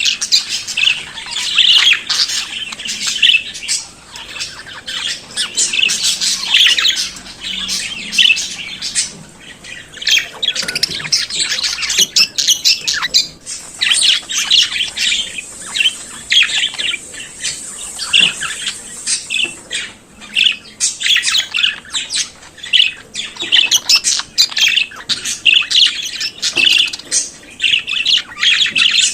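Budgerigars warbling and chattering: a dense, continuous stream of rapid chirps, whistles and squawks.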